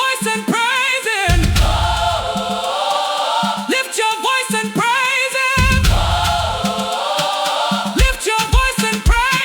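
Afro-gospel praise music: a choir singing with a wavering vibrato over a deep bass that comes in and drops out in stretches of about two seconds.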